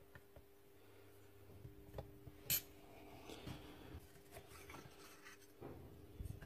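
Faint rubbing and small clicks of the pin nailer's metal parts being handled as its aluminium cylinder housing is worked loose and slid off, with one sharp click about two and a half seconds in.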